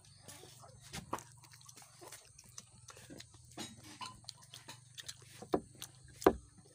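A child chewing and smacking while eating rice by hand from an enamel plate: irregular wet mouth clicks and smacks, with two louder ones near the end, over a low steady hum.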